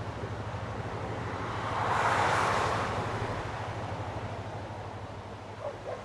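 Distant approaching train: a steady low, pulsing rumble, with a broad rushing noise that swells about two seconds in and then fades.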